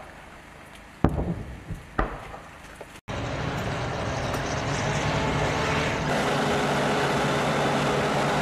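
Two distant booms about a second apart, then the steady running of a BM-27 Uragan launcher's ZIL-135 truck engines with a low, even hum.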